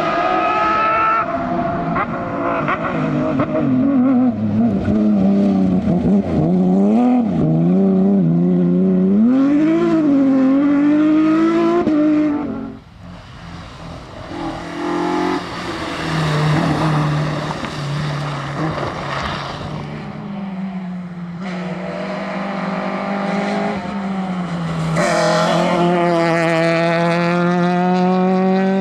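Rally car engines revving hard and changing gear as cars drive a stage, the pitch climbing and dropping repeatedly. There is a brief lull about thirteen seconds in, then another engine holds a steadier note before rising again near the end.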